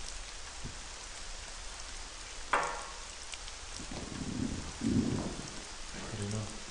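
Steady rain pattering, with a drinking glass set down on a glass tabletop in one sharp clink about two and a half seconds in. A few low rumbles follow in the second half.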